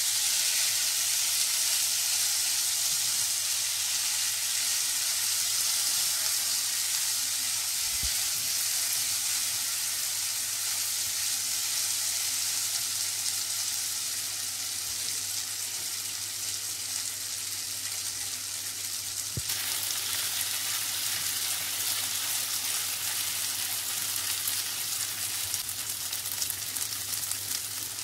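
Prawns frying in a little hot oil with curry leaves and chopped garlic in a non-stick pan, giving a steady sizzle that shifts abruptly about two-thirds of the way through.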